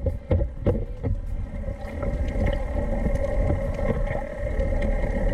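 Boat engine running steadily, with wind noise on the microphone. A few sharp knocks come in the first second.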